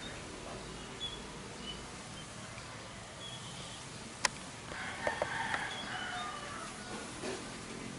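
Small birds chirping in short, high calls, with a busier run of chirps about five seconds in. A single sharp click sounds just past four seconds.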